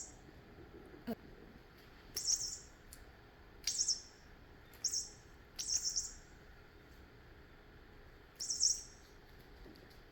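Short, high-pitched chirping, five brief bursts a second or so apart, with a single sharp click about a second in.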